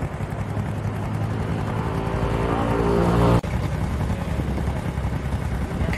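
An engine drone grows steadily louder and then cuts off abruptly about three and a half seconds in. A low rumble follows.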